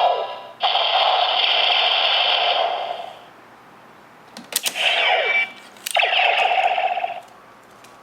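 Bandai DX Neo Decade Driver toy belt playing its electronic Final Attack Ride sound effects through its small built-in speaker. A buzzing electronic tone holds for about two and a half seconds, then near the middle come a few sharp clicks with a falling sweep, and another tone lasts about a second.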